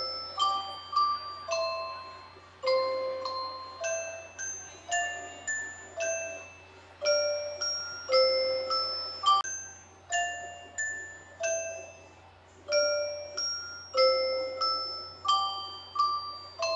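Slow melody played on a glockenspiel: single struck notes, about two a second, each ringing briefly and fading, with short pauses between phrases.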